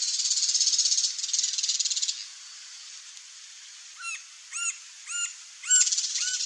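A bird calls five short, arched notes at about 0.6 s intervals, starting about four seconds in, over a high buzzy trill that sounds for the first two seconds and returns near the end.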